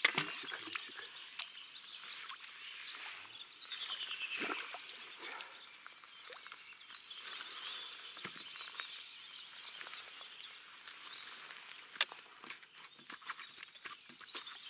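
Songbirds singing and chirping, including a falling run of notes a few seconds in. A fish splashes in the landing net at the very start, and there is one sharp click about twelve seconds in.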